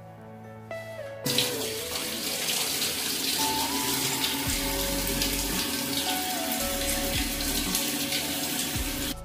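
Water running from a wall-mounted kitchen sink mixer tap, pouring in a steady stream into a steel sink. The flow starts about a second in after the tap is turned on.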